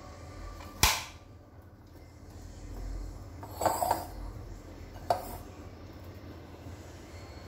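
A kitchen knife cuts through cauliflower and strikes a plastic cutting board with one sharp knock about a second in. Around four seconds in comes a short clatter of florets dropping into a glass bowl, and a second sharp knock follows a second later.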